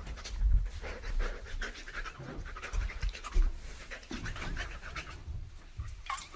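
A man panting and making short breathy noises in irregular bursts, with low rumbling handling noise on the phone's microphone as it is shaken about.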